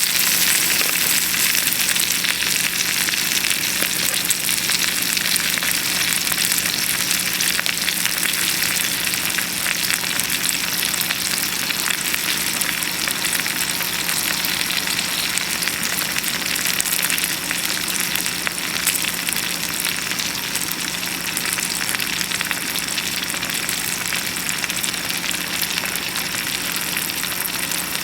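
Bacon and eggs sizzling in a frying pan over a wood-fired rocket stove: a steady, crackling sizzle that eases slightly toward the end, with a faint steady hum underneath.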